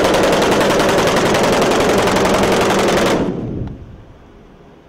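A long, continuous burst of automatic machine-gun fire, blanks from a film-set prop gun, in very rapid even shots; it stops a little over three seconds in and the echo dies away.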